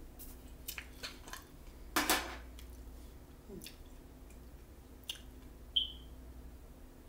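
Drinking from an insulated bottle: light handling clicks and mouth noises, with a loud short rush about two seconds in and a brief high squeak near the end.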